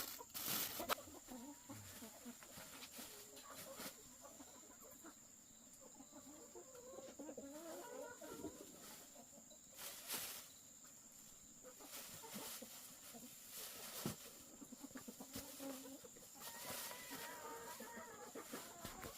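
Chickens clucking faintly, with a few scattered sharp knocks.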